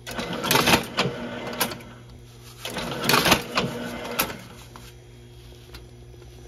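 Tabletop gyoza-making machine running, its mechanism clattering in two bursts about two seconds long, with a low steady hum between them.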